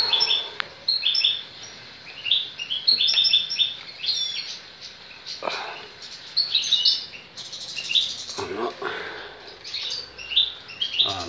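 European goldfinch twittering: bursts of quick, high chirps, several in a row with short pauses between them.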